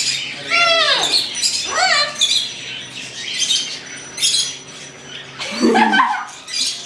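A pet cockatoo squawking and calling in a string of separate calls, the first few swooping steeply down in pitch, then short harsh squawks, with a louder, lower call near the end.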